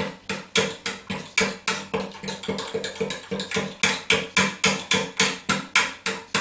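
Pancake batter being beaten by hand in a small bowl, the utensil clicking against the bowl in a quick, regular rhythm of about four strokes a second.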